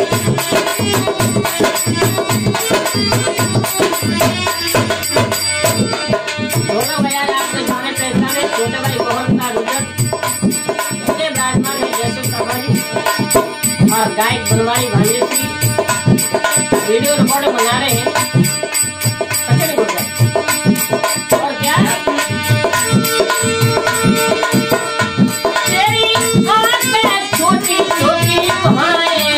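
Hindi devotional folk music: a harmonium playing a sustained melody over fast dholak drumming, with a man singing a Ganesh bhajan.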